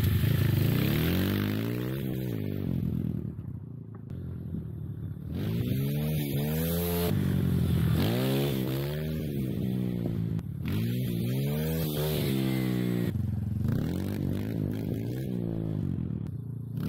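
Kayo TT140 pit bike's small single-cylinder four-stroke engine revving up and dropping back again and again, its pitch rising and falling every two to three seconds as the throttle is worked. It fades briefly a few seconds in, then comes back loud.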